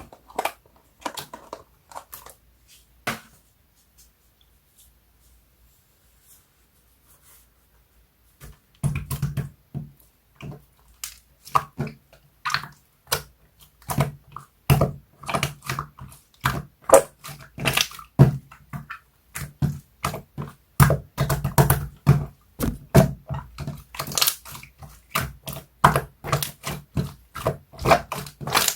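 Slime being squished and pressed by hand, making wet clicks and pops. There are a few scattered clicks at first, then a pause of several seconds, then dense clicking and popping from about nine seconds on.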